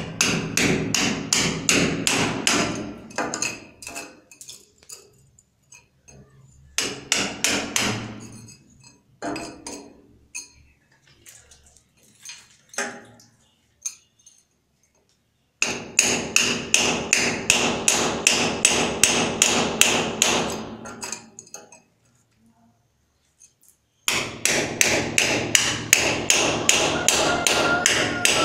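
Hand hammer striking masonry at the edge of a cement counter base in quick runs of blows, about five or six a second. Each run lasts a few seconds, with short pauses between.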